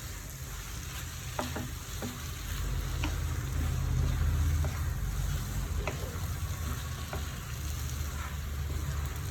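Chicken in thick masala gravy sizzling in a pan as it is stirred, with a spoon clicking and scraping against the pan now and then, over a steady low hum.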